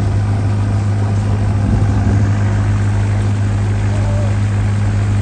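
A boat's engine idling: a steady low drone that holds an even pitch throughout.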